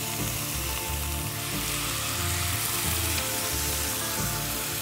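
Chicken pieces sizzling steadily as they brown in a hot Birmingham Stove & Range cast iron spider (a legged skillet).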